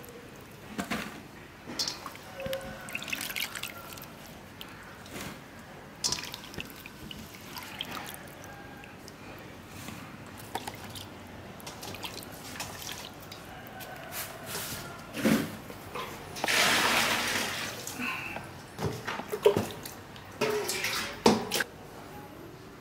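Water splashing and dripping as edible larvae are rinsed by hand and drained in a plastic colander, with a longer rush of water about 17 seconds in and a few sharp clicks near the end.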